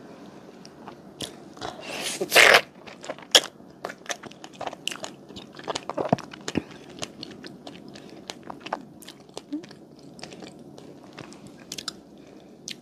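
A person biting into a strawberry mochi, a soft rice-cake skin around a whole strawberry, and chewing it close to the microphone. One loud bite comes about two seconds in, followed by many short mouth clicks and smacks as she chews.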